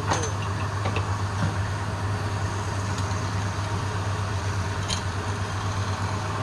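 A motor running steadily with a constant low hum and a noisy whir over it, with a few light ticks.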